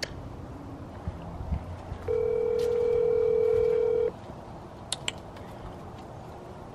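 Telephone ringback tone from a phone on speaker: one steady two-second tone about two seconds in, the ring a caller hears while an outgoing call waits to be answered. A couple of faint clicks come near five seconds in.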